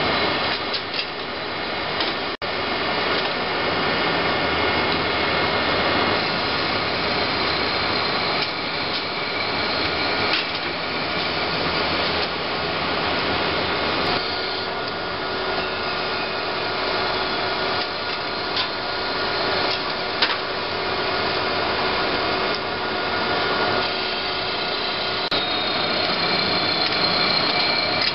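Steady machine-shop noise from CNC lathes running while an ABB IRB 1400 robot loads them: a continuous mechanical hum with several steady high tones and scattered short clicks and knocks.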